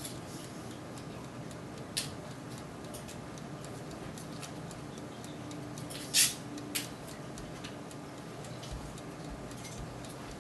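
Turbo convection oven running steadily with a low hum while pork chops cook inside its glass bowl, with scattered sharp ticks and pops. The loudest pop comes about six seconds in, with another just after.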